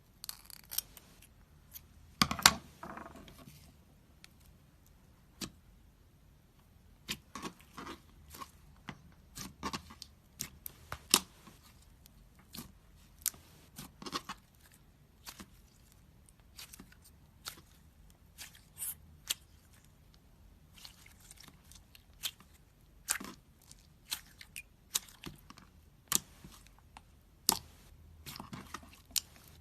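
Slime being squished and stretched by hand, giving irregular sharp clicks, pops and short crackles, with the loudest crackle about two seconds in.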